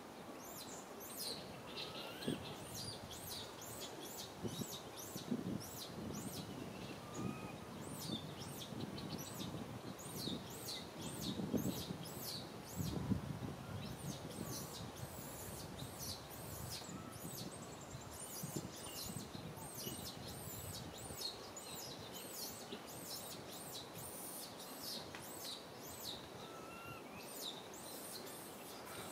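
Many small birds chirping in quick, high, short notes all through, with a few faint rising call notes now and then. Some low rustling bumps come around the middle.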